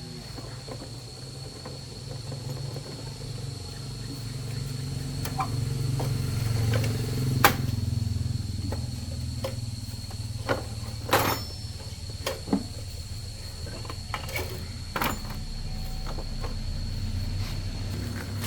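A low steady mechanical hum that swells a few seconds in, with scattered sharp metallic clicks and knocks, two of them louder, about midway.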